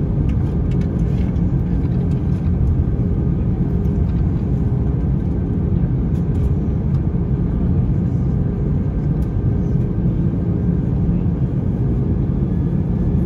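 Steady cabin rumble of an Airbus A321ceo taxiing after landing, its engines at idle, with a faint steady hum over the noise.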